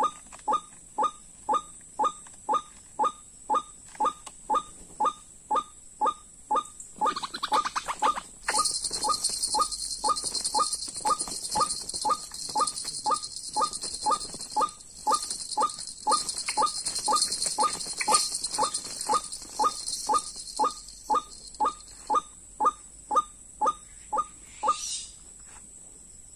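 White-breasted waterhen's 'kru-ak' call, repeated very evenly about twice a second, stopping about a second before the end. A high shrill insect buzz joins in about a third of the way through and fades out again in the last quarter.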